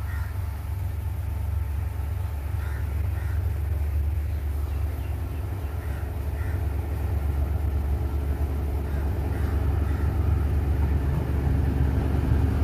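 Sri Lanka Railways Class W3 diesel locomotive approaching slowly while towing a train. Its engine is a steady low rumble that grows gradually louder as it nears.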